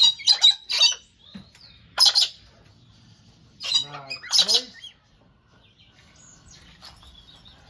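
Galah cockatoos calling with harsh, high-pitched screeches: a cluster of calls at the start, one about two seconds in, and a pair near four seconds. After that only faint background is left.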